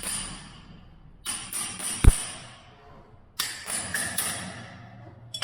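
The protruding ends of 5 mm plastic wall plugs being cut off flush in three short bursts of scraping and clicking, with one sharp knock about two seconds in.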